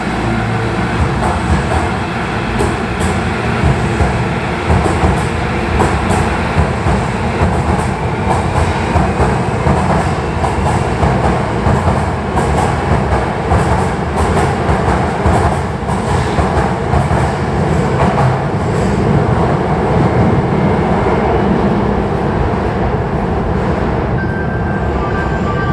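Electric train pulling out of an underground station platform: a continuous loud rumble with the wheels clacking over rail joints.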